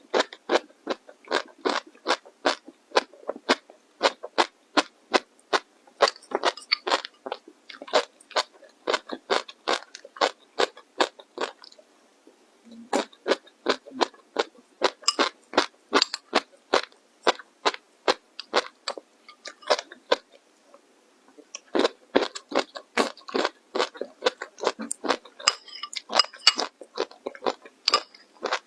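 Chewing crunchy food close to the microphone: quick crisp crunches, about three a second, with a short lull about twelve seconds in and another around twenty seconds.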